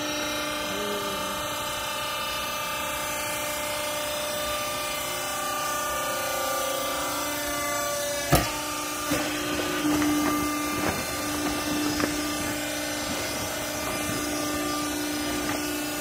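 Hydraulic power unit of a vertical clothing baler running with a steady hum. A sharp knock comes about eight seconds in, followed by a few lighter knocks over the next few seconds.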